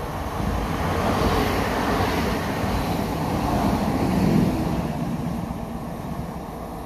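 Pågatåg electric multiple unit (Alstom Coradia Nordic X61) running past along the platform: the rumble of wheels on rails and running gear swells as it approaches, is loudest about four seconds in, then fades as the train pulls away.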